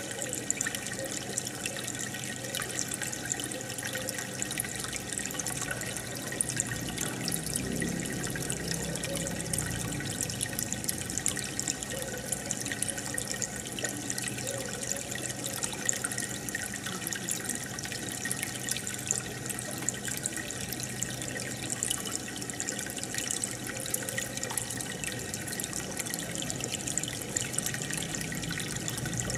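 Aquarium water bubbling and trickling steadily from a stream of air bubbles and the filter, with many small crackles.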